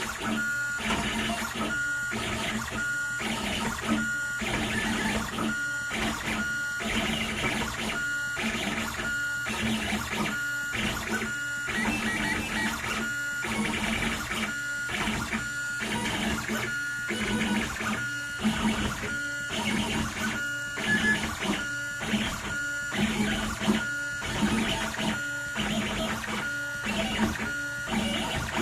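Stepper motors of a homemade CNC pen plotter whining as the machine draws, in repeated short stop-start moves with brief pauses between them.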